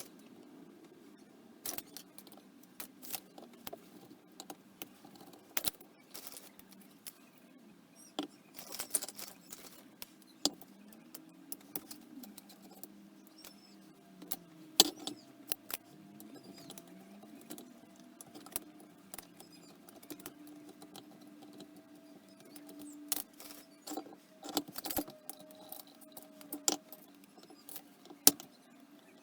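Irregular metallic clicks and clinks of small parts and tools being handled as a Dellorto DRLA 40 carburettor is taken apart, over a faint steady hum.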